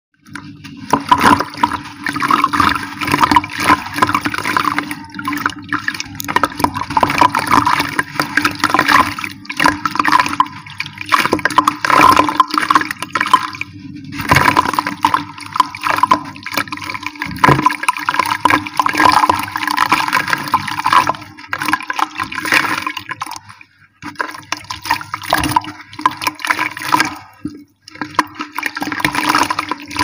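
Hands crushing and crumbling a dry sand-cement block, a dense gritty crackling and crunching that comes in stretches with short pauses, as crumbs fall into a plastic tub. A steady low hum runs underneath.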